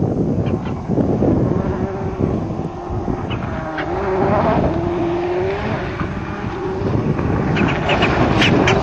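Ford Focus WRC rally car's turbocharged four-cylinder engine revving on a gravel stage as the car approaches, getting louder. The pitch climbs twice near the middle over a steady rush of tyres on gravel, and sharp cracks come in the last second or so as the car draws close.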